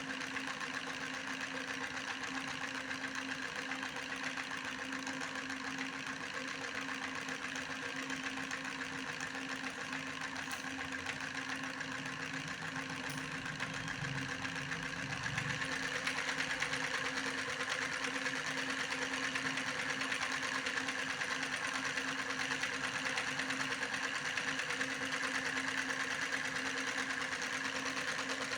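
A small motor running steadily with a constant hum, getting somewhat louder about halfway through.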